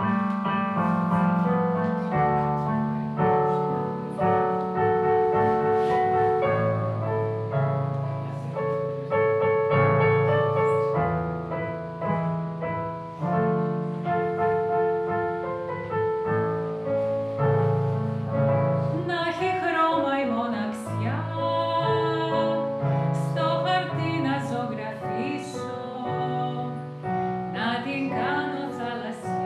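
A digital piano plays a slow introduction of chords and melody. About two-thirds of the way through, a woman starts singing over it in a trained, classical style with strong vibrato, and the piano goes on accompanying her.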